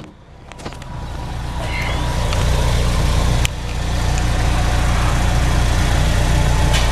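The Chevy Equinox's four-cylinder engine idling, heard as a steady low exhaust rumble from beneath the rear of the car near the muffler. The rumble grows louder over the first couple of seconds and then holds steady, with one sharp knock midway through.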